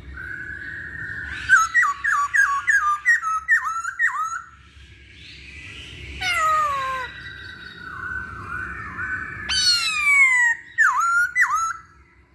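Masked laughingthrush (Hong Kong poksay) singing: a quick run of short downward-slurred whistled notes, then a long falling whistle about six seconds in. Near the end come a loud falling slurred phrase and two short hooked notes.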